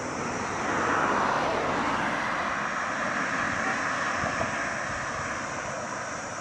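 Road vehicle noise: a steady rush of engine and tyre sound that swells about a second in and slowly fades.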